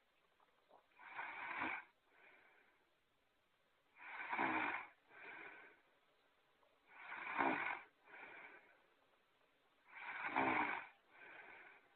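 Looped cartoon snoring sound effect: a louder snore followed by a shorter, softer breath, repeating about every three seconds, four times.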